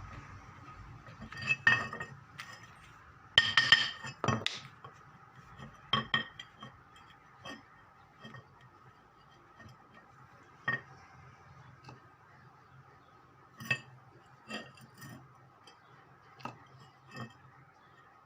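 Scattered metallic clinks and taps of tools and small metal parts being handled during a washing machine motor bearing job. The loudest cluster comes about two to four seconds in, then single clinks follow every second or two.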